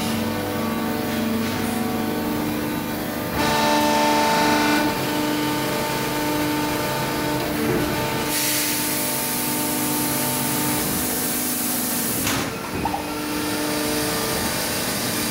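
Van Dorn Demag 600-ton injection moulding machine running: a steady machine hum with several whining tones. The sound gets louder for about a second and a half, starting about three and a half seconds in. A high hiss comes in at about 8 seconds and stops at about 12.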